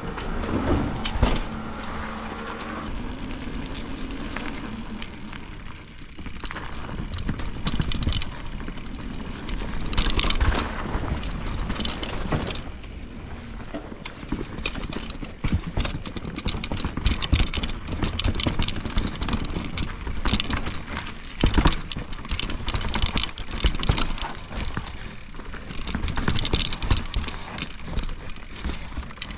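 Enduro mountain bike riding down a rough, wet trail: tyre noise on dirt and roots, with chain and frame rattling and frequent knocks over bumps.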